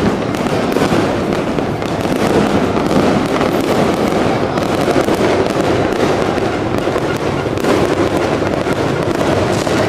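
Many fireworks going off at once, their pops and bangs overlapping into a loud, continuous din with no pause.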